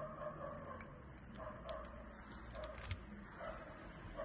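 Gold-tone metal jewelry clinking and jingling lightly as the pieces are handled and knock against each other, a scattering of small sharp clinks.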